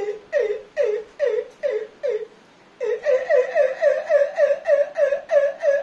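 A man imitating an animal call with his voice: short calls, each falling in pitch, repeated about twice a second. After a brief pause a little after two seconds in, a faster and slightly higher run follows at about three a second.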